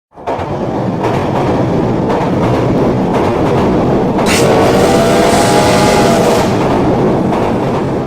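Train running on rails with a loud, dense rumble that starts suddenly. About four seconds in comes a brief hiss, followed by a wavering squeal for about two seconds.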